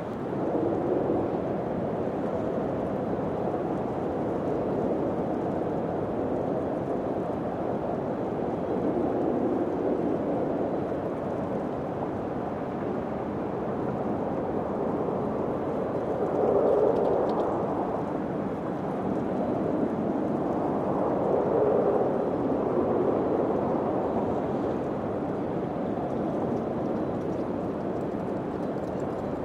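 Wind blowing in a steady low rush, swelling in gentle gusts every several seconds.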